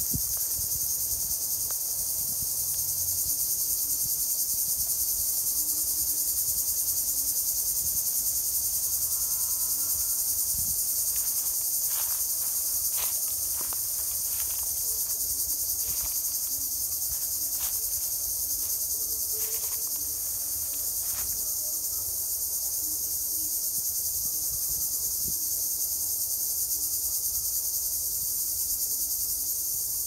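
A dense, steady, high-pitched chorus of many insects. A few faint short chirps come through around the middle.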